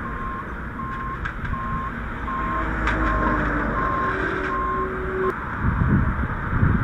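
A vehicle's reversing alarm beeping in an even rhythm, about three beeps every two seconds, over a steady low rumble. The beeping stops about five seconds in.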